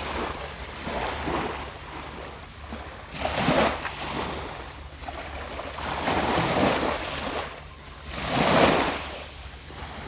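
Small waves washing up onto a shallow sandy, pebbly shoreline, each wash swelling and fading every two to three seconds, the loudest about eight and a half seconds in.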